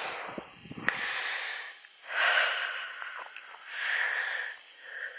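A person breathing close to the microphone, with soft breathy exhales about every two seconds.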